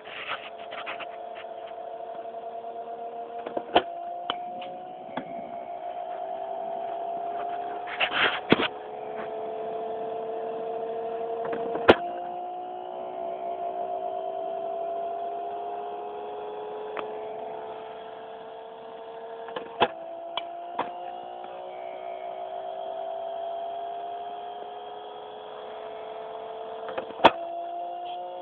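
Batting cage pitching machine's spinning wheel motor running with a steady whine. Four times, about every eight seconds, its pitch drops suddenly with a sharp crack as a ball is fired, then slowly climbs back. A few other sharp cracks fall in between.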